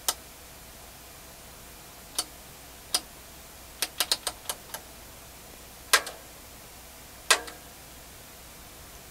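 Rotary range-selector switch on an AWA F242A distortion and noise meter being turned by hand, clicking through its detents: a few single clicks, a quick run of about six clicks around four seconds in, then two louder clicks near the end, over a low steady hiss.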